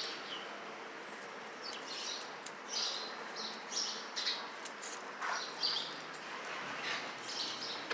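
Small birds chirping: short, high chirps scattered irregularly, with a few faint clicks among them.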